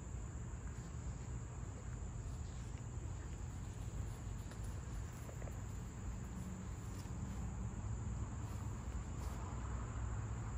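Steady high-pitched drone of insects calling, one unbroken tone, over a low rumble.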